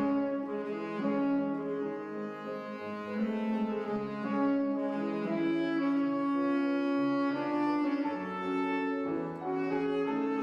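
Soprano saxophone and tenor saxophone playing a waltz melody with grand piano accompaniment, in held, flowing notes.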